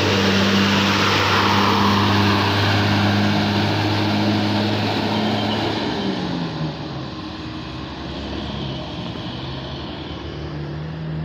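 A large tour bus's diesel engine labours loudly as the bus climbs the steep hill close by. About six seconds in, the engine's pitch drops and the sound fades as the bus pulls away up the slope.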